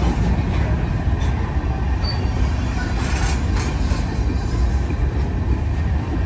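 Norfolk Southern freight train's covered hopper cars and a tank car rolling past at close range: a steady heavy rumble of steel wheels on rail, with a few brief clanks.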